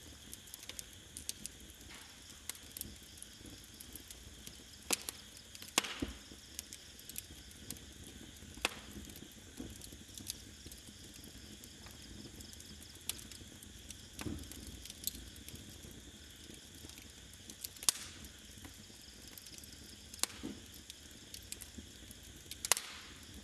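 Small open wood fire crackling, with irregular sharp pops, over a steady high chirring of crickets.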